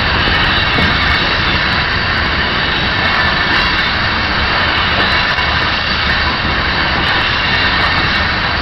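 Covered hopper cars of a freight grain train rolling past at close range, a continuous steady rumble of wheels on rail, with strong wind buffeting the GoPro microphone.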